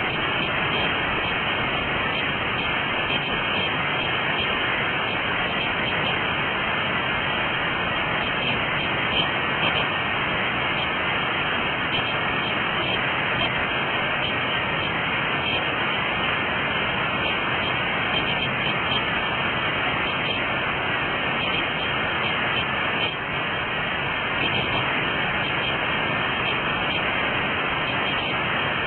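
Rushing creek water, a steady hiss that doesn't change.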